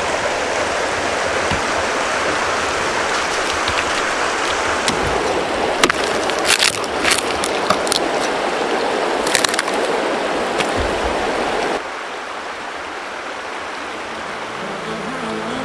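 Shallow mountain river rushing steadily over stones. About halfway through there is a cluster of sharp cracks of firewood being broken, and near the end the water sound drops a little quieter.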